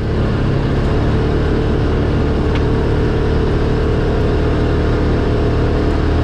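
Polaris RZR 570 UTV's single-cylinder engine running at a steady speed while the machine drives along, a constant even drone.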